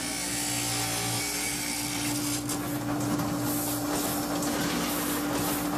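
A workshop machine or power tool running with a steady hum, joined about two and a half seconds in by a regular rasping like sawing wood, about three strokes a second.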